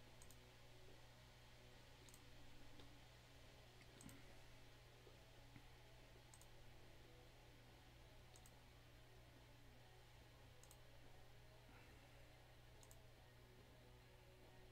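Faint computer mouse clicks, one about every two seconds, each a quick press-and-release pair, over a low steady hum: a randomizer button being clicked again and again.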